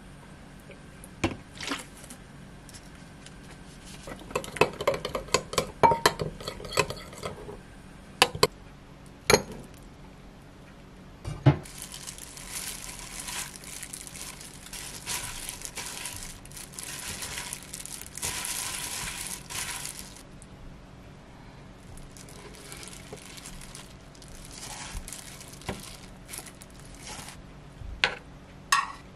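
Metal spoon clinking and scraping against a glass mixing bowl as sauce is stirred, then a long stretch of rustling as noodles are mixed by hand in a plastic glove in the bowl. A few sharp clicks come near the end.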